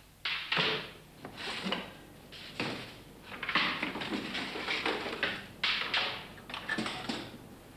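Metal baking trays of bread rolls sliding and scraping into the shelves of a bakery oven, in about half a dozen separate scrapes and clatters.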